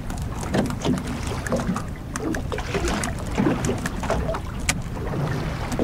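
Wind buffeting the microphone and water washing against a small aluminium boat's hull, with many short light clicks and taps throughout from handling the bait, knife and hook.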